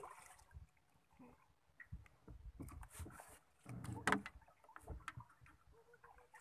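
Handling noise in a small boat: scattered knocks and rubbing of fishing tackle and a small fish being brought aboard, with one louder knock about four seconds in.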